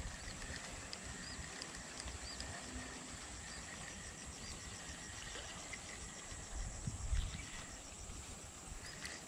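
Tropical insects droning steadily in a high pitch, with short repeated chirps over it, and a brief low rumble about seven seconds in.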